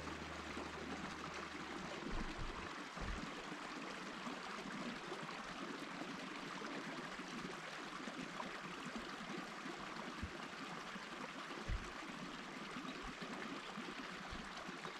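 Steady, even rushing of water, with a few faint low knocks.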